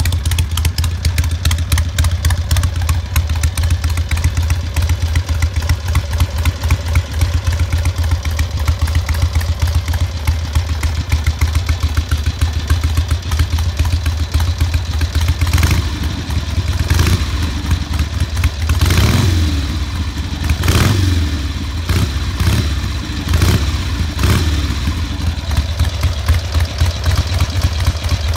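Harley-Davidson XLH1000 Ironhead Sportster V-twin idling through short heat-wrapped exhaust pipes, firing in a steady pulse. From about halfway on, the throttle is blipped several times, each rev rising and falling back to idle.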